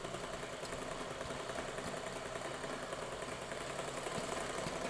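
Domestic sewing machine running and stitching: a steady, rapid mechanical clatter. The seller notes this machine gives a little 'kadak' sound while sewing, unlike the bigger, quieter machines.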